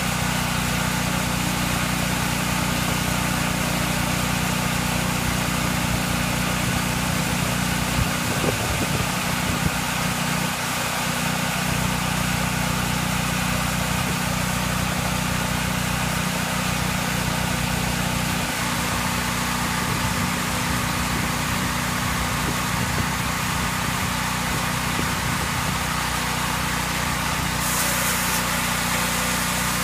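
Sawmill machinery running steadily with a constant engine-like hum, a few short knocks about eight to ten seconds in, and a slight change in tone a little past halfway.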